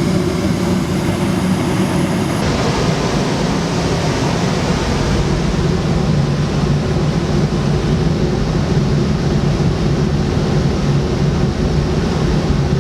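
Gas furnace running with its thermostat calling for heat: a loud, steady mechanical hum and rush of blower air. The hiss shifts in tone about two and a half seconds in.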